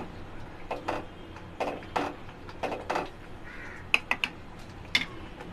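A crow cawing three times, about once a second, followed by a few sharp clicks near the end.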